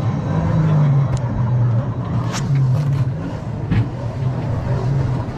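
Lightning Rod roller coaster train rolling along its track, its wheels giving a steady low rumble, with a few sharp clacks from the track and train.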